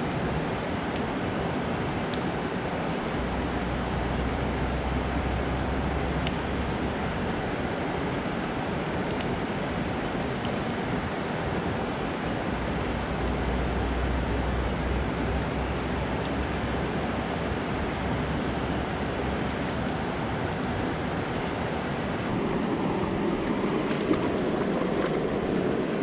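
Steady rush of water spilling over a concrete dam spillway and churning in the river below. The sound grows a little louder and fuller near the end.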